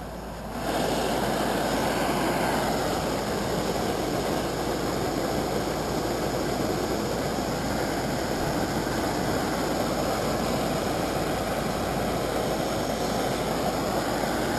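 Small isobutane canister backpacking stove burning at a steady, even hiss under a pot of water being brought to the boil. The flame noise gets louder about half a second in and then holds steady.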